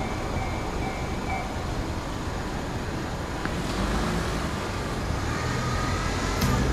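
Steady traffic rumble, even throughout, with no distinct events.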